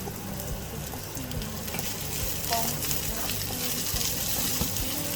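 Ginger, chili and onion stir-frying in hot oil: a steady sizzle with the scattered clicks and scrapes of a spatula stirring in the pan.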